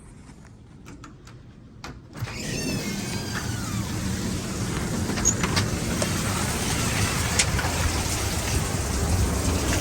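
Windstorm noise with heavy rain: a loud, steady roar of wind and rain comes in suddenly about two seconds in, after a quieter start with a few clicks.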